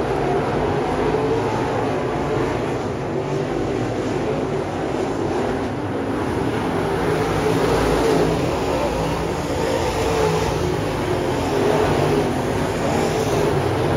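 A pack of dirt late model race cars racing around a dirt oval, their V8 engines making a dense, steady engine noise that swells and fades a little as the cars pass.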